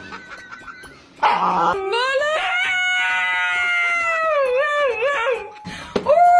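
Siberian husky howling: one long howl that rises, holds, then wavers and falls, ending a little after five seconds in. Just before the end a husky puppy starts a second, steady howl.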